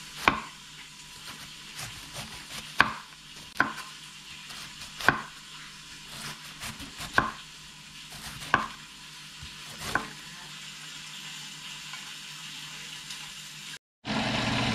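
A kitchen knife slicing through a head of green cabbage and knocking on a bamboo cutting board: about seven sharp chops, one to two seconds apart, with fainter cuts between. After a brief gap near the end, a louder steady noise takes over.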